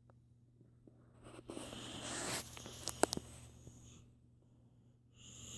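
A sleeping toddler with reactive airway disease breathing noisily, with a long raspy breath swelling and fading about two seconds in and another starting near the end. A few sharp clicks come about three seconds in, over a steady low hum.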